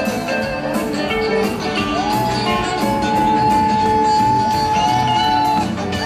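Rock band playing live, heard from among the audience: guitars over a steady drumbeat, with one long held note through the middle.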